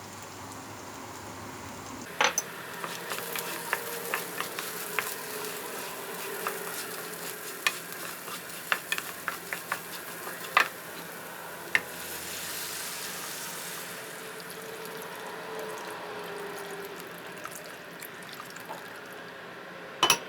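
Food sizzling as it fries in a pan while it is stirred, with scattered clicks and knocks of the utensil against the pan.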